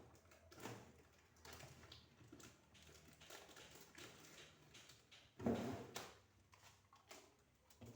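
Faint scattered clicks and knocks of household objects being handled, with one louder clatter about five and a half seconds in.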